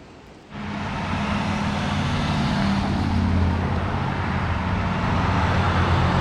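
A car driving on a wet highway: a steady low engine hum over the hiss of tyres on wet pavement, starting abruptly about half a second in.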